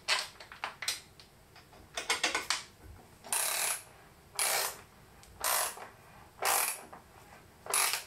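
Ratchet wrench tightening the nut that holds a cable lug on a circuit breaker terminal. A few clicks and a quick run of ratcheting come first, then five short ratcheting strokes about a second apart.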